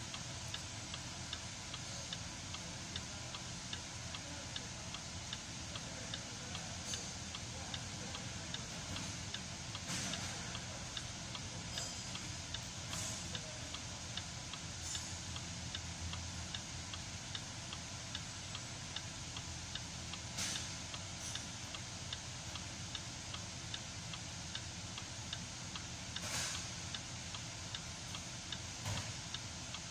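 Land Rover engine idling with a steady, fast ticking, running smoothly without misfires now that its leaking fuel-injector O-rings have been replaced. A few louder clicks stand out about a third, two thirds and nearly nine tenths of the way through.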